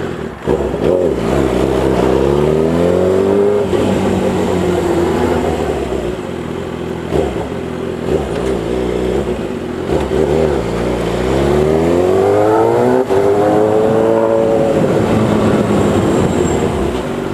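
Inline-four sport motorcycle with an aftermarket Firetong 4-into-1 exhaust, accelerating twice: the engine note climbs in pitch in the first few seconds, drops back, then climbs again to a peak about fourteen seconds in before falling as the throttle closes.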